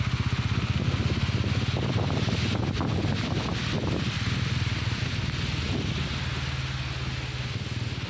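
Motorcycle engine running at a steady low speed while riding, gradually getting quieter, with a few brief clicks in the middle.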